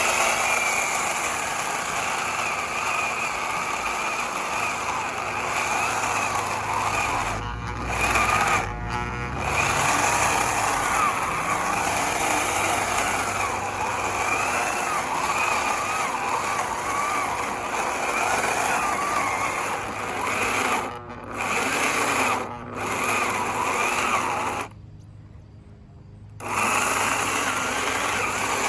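Hyper Tough 9-amp corded electric chainsaw running steadily while cutting wood. The motor dips briefly several times and drops off for about two seconds near the end before running again.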